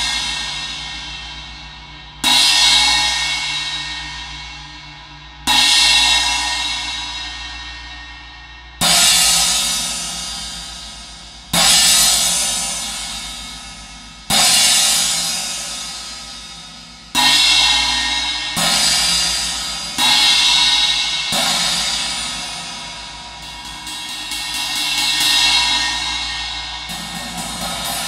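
An 18-inch Zildjian Platinum Pang, a china-type cymbal with a flat flanged edge, is struck about ten times, each crash ringing bright and fading over a couple of seconds. The strikes come closer together in the second half, and a gradually rising swell, like a roll, builds near the end.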